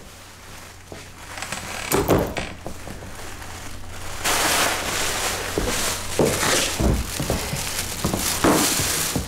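A person walking and sitting down on a chair with a thunk, then several seconds of rustling and crinkling as a bag is handled. A low steady hum underneath.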